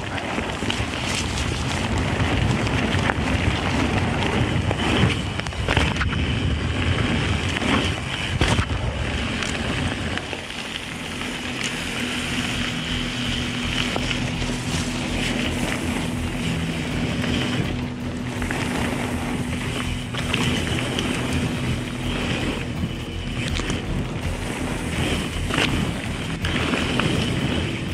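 Mountain bike ridden fast on a dirt and gravel forest trail: wind rushing over the microphone and tyres rumbling on the ground, with sharp knocks and rattles from the bike over bumps. The rumble eases about ten seconds in.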